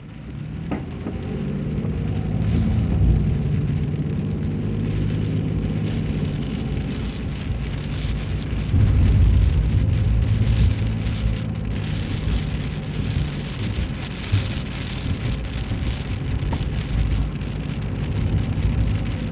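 A car running along the road, its engine hum and tyre noise swelling over the first couple of seconds, with a fine patter of ice pellets falling.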